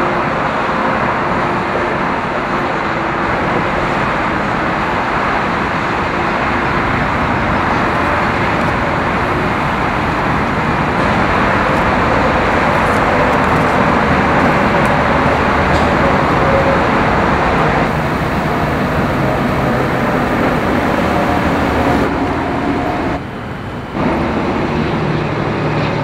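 Steady road and wind noise of a vehicle travelling at speed, an even rush that dips briefly near the end.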